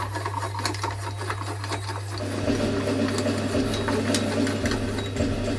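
Homemade bench vise's trapezoidal threaded screw being spun quickly by its T-handle: a rapid mechanical rattle and ticking as the jaw slides along its guides, growing fuller about two seconds in. A steady low hum runs underneath.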